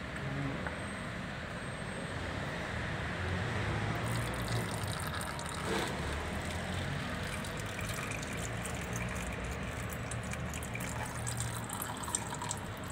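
Engine oil from a Volkswagen Amarok pouring steadily out of the open sump drain hole during an oil change, a continuous gushing splash of liquid.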